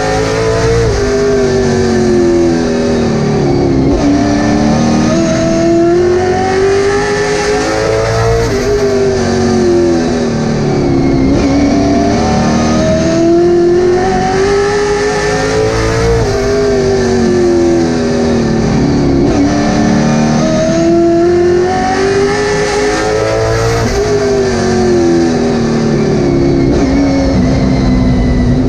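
Late Model stock car's V8 engine heard from inside the cockpit at race pace. Its pitch climbs along each straight and drops off into each turn, about every seven to eight seconds.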